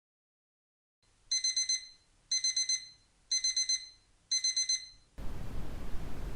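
Digital alarm-clock-style timer beeping: four groups of rapid high beeps, about one group per second, signalling the end of the pomodoro break. Just after the beeps stop, a steady brown-noise hiss starts.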